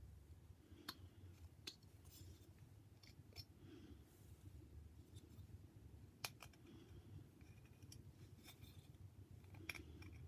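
Carving knife cutting small chips off a wooden figure by hand: a scatter of faint sharp clicks and short scrapes as the blade bites and slices, over a steady low hum.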